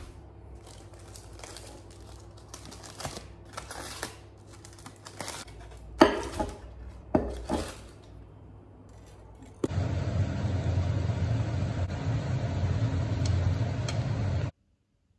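Aluminium foil being crinkled and peeled back off a plate, with sharper crackles about six and seven seconds in. About ten seconds in it gives way to the steady sizzle of egg and tomatoes frying in a pan, which stops abruptly near the end.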